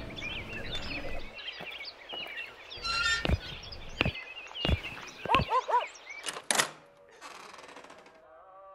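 Birds chirping, then a run of dull thuds about a second apart with short bird calls between them, and a drawn-out creak near the end.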